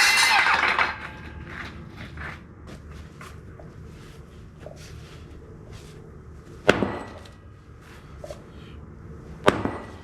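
A concrete saw stops within the first second. Light knocks and clicks follow, then two sharp sledgehammer blows on the concrete slab about three seconds apart, the second near the end.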